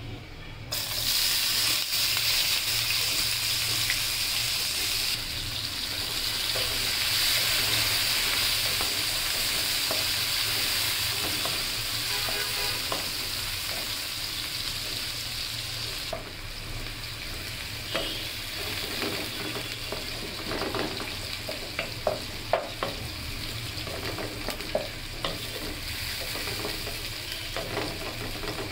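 Sliced spring onions frying in hot oil in a nonstick wok: a loud sizzle starts suddenly about a second in, then eases off as they cook. In the second half, the taps and scrapes of a wooden spatula stirring them come through the sizzle.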